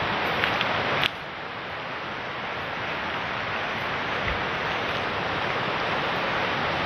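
Steady rushing of a rocky river's rapids. A short click comes about a second in, after which the rushing is a little quieter.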